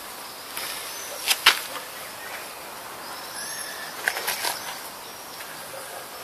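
Footsteps on gravel, with two sharp clicks about a second and a half in and a few more near four seconds. Small birds chirp in the background.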